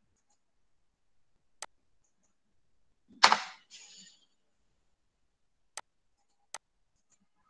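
Computer mouse clicks: three single sharp clicks spread apart. A little over three seconds in comes a short, much louder rush of noise, the loudest sound here.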